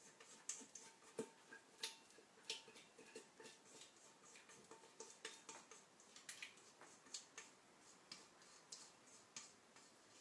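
Faint, irregular light clicks and taps from a stainless steel mixing bowl being handled and tilted while a thick cream filling is poured from it. The louder clicks come in the first few seconds and again around the middle.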